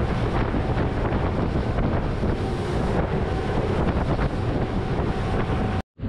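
Boat running across the water, with wind buffeting the microphone over the engine and the water rushing past the hull. The sound cuts out abruptly for a moment near the end.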